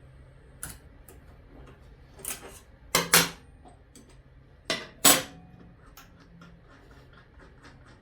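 Sharp metal clinks and clanks of a steel wrench, arbor bolt and washers being handled on a table saw. There are two loud double clanks, about three and five seconds in, with lighter clicks around them.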